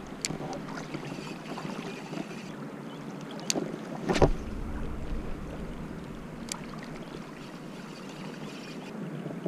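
Riverbank ambience: a steady rush of water and wind on the microphone, with a few light ticks from the spinning rod and reel being handled. About four seconds in the rod is swung into a cast, giving one sharp knock with a low thump, the loudest sound here.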